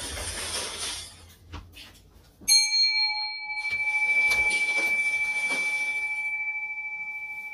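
A meditation-hall bell struck once, about two and a half seconds in, ringing on with a clear tone that slowly fades.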